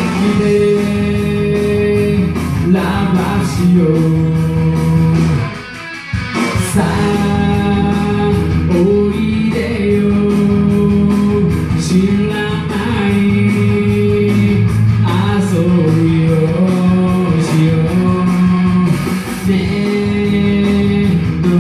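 Japanese rock song sung karaoke-style by a man over a backing track with guitar. The backing dips briefly about five and a half seconds in.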